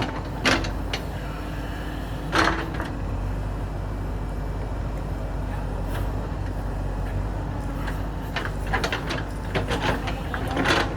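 JCB 3DX backhoe loader's diesel engine running steadily at work, with sharp knocks and scrapes of metal on rock and soil: a couple of single strikes early on, then a cluster of them near the end.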